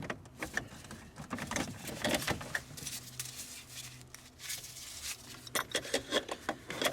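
Scattered light metallic clicks and taps of hand work on the battery hold-down bracket as it is turned and tightened.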